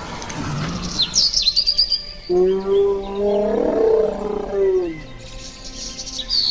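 Film sound effects for an animated stegosaurus: high bird chirps, then a long, low moaning dinosaur call with a wavering pitch, lasting about two and a half seconds, and more chirps near the end.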